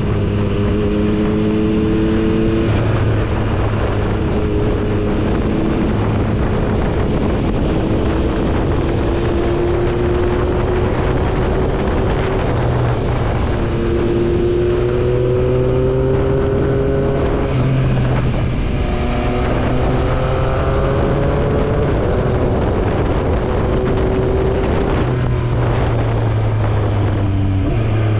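Yamaha MT-09's three-cylinder engine pulling along winding bends, its note slowly rising and then dropping away several times as the throttle is rolled on and off, with wind rushing over the microphone.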